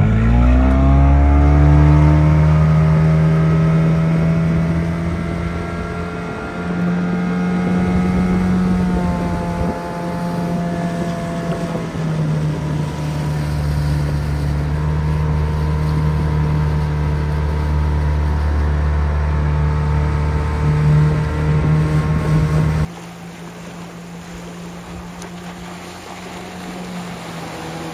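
Mercury Water Mouse mini boat's 15 hp two-stroke outboard revving up quickly as the throttle opens, then running hard at speed, its pitch dipping and climbing again with the throttle. About 23 seconds in it gives way abruptly to a fainter small boat engine running at a distance.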